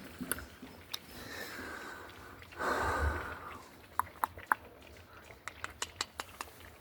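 Saint Bernard puppies eating dry kibble from their bowls: sharp crunching and clicking, with sniffing and snorting. A short rushing whoosh about three seconds in.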